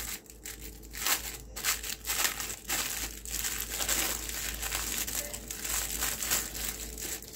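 Clear plastic packaging crinkling in irregular crackles as it is handled in the hands.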